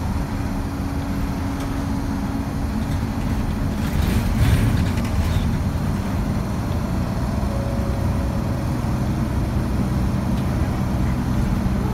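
Engine drone and road noise heard inside a Nishitetsu city route bus as it drives up an expressway on-ramp, with a louder rush of noise about four to five seconds in.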